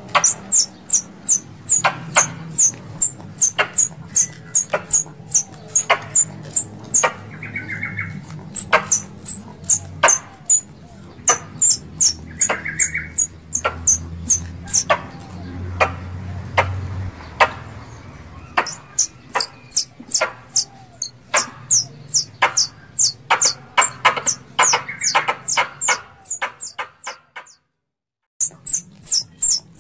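Squirrels giving a fast run of sharp, high chirping calls, two or three a second in bursts with short pauses, over a low hum. These are squirrel calls of the kind used as a mating lure, which the title calls a squirrel in heat asking to mate. The sound cuts out briefly near the end.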